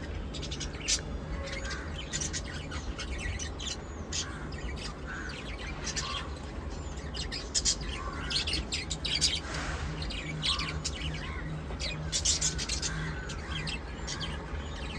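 Small pet parrots chirping and chattering in quick, high, short calls, several a second, over a steady low hum.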